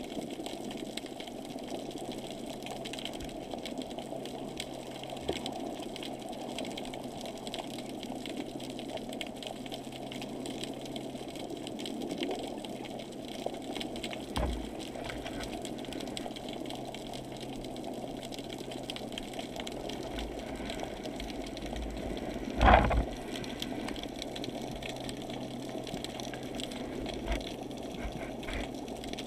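Muffled underwater noise heard through a GoPro's waterproof housing: a steady low rush with a faint hum under it. One loud knock about two-thirds of the way through, with a few lighter knocks around it, from the camera platform bumping.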